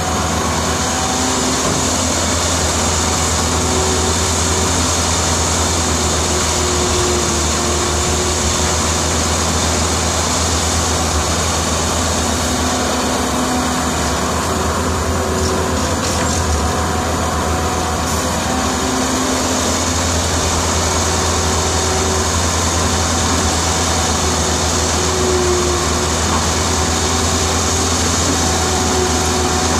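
Caterpillar E120B excavator's diesel engine running steadily under working load, with a strong low hum and higher tones that waver as it digs and swings to load a dump truck.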